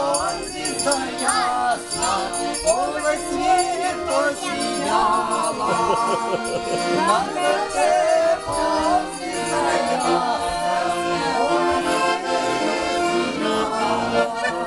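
A group of carolers singing a Ukrainian Christmas carol (koliadka) to accordion accompaniment, with voices overlapping.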